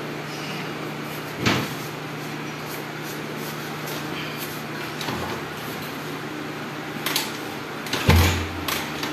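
Start attempts on a prototype motorcycle engine that has run out of ethanol: a few knocks and clunks over a steady low hum, then a brief low cough about eight seconds in as the engine fails to catch.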